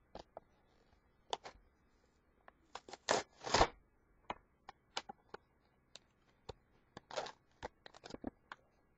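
Cardboard-and-plastic blister pack of a Beyblade toy being torn open by hand: scattered crinkles, scrapes and short tearing rips, the loudest about three seconds in and again about seven seconds in.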